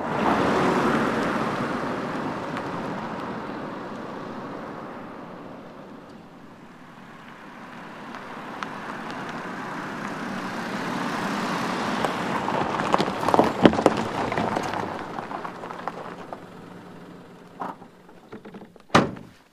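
A small car, a Citroën C4 Cactus, driving by on a paved road: its tyre and engine noise fades away over the first few seconds, then swells again to a peak about two-thirds of the way through and dies down. A single loud thud comes near the end.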